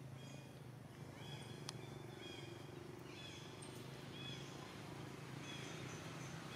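Faint animal chirps, short and high-pitched, repeating roughly once a second over a steady low hum.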